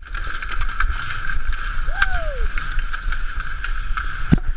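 Hockey player skating with a chest-mounted action camera: a constant low rumble of skates, body movement and gear rubbing against the camera housing, over a steady hum. A short falling cry or squeal about halfway through and a single knock near the end.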